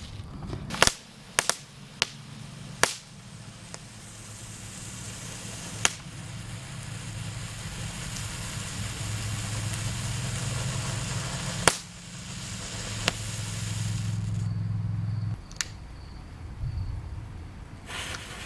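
Consumer ground fountain fireworks spraying sparks with a steady hiss, broken by several sharp single pops. The hiss stops about fifteen seconds in, leaving a few quieter pops.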